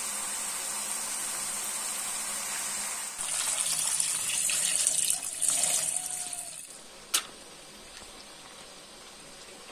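Tap water running into a metal pot of rice as it is rinsed by hand, loudest from about three seconds in for a few seconds. Before it, a steady hiss from a pot of water at the boil; after it, a single click and a softer steady hiss.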